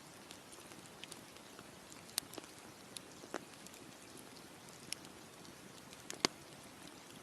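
Campfire crackling: irregular sharp pops and snaps of burning wood over a soft, steady low hiss, the loudest pop about six seconds in.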